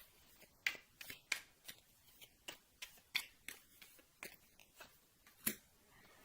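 Tarot cards being handled: a string of short, crisp snaps and taps at uneven intervals, about fifteen in all, as cards are pulled from the deck and laid down.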